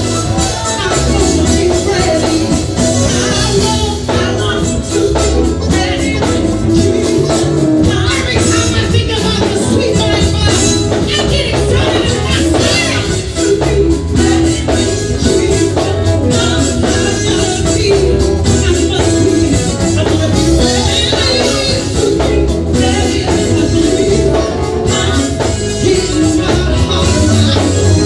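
Live gospel music: a group of women singing with a band of electric guitar, bass guitar and drums.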